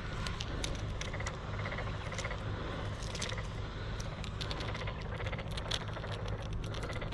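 Scattered light clicks and rattles, with short runs of fast ticking, over a steady low hum.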